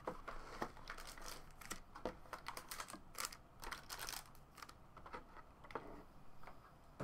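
Faint, irregular taps, clicks and rustles of hands opening a 2013-14 Panini Preferred basketball card box and drawing out its contents.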